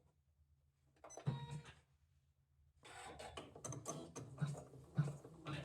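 Janome Atelier 9 sewing machine with its embroidery unit starting up: a short mechanical whir about a second in, then from about three seconds in the needle stitching the tack-down outline in a rapid, steady mechanical rhythm.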